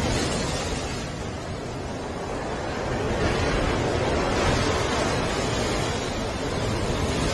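Surf breaking and washing over a rocky shore: a steady rushing noise that eases off, then swells again a few seconds in as another wave comes in.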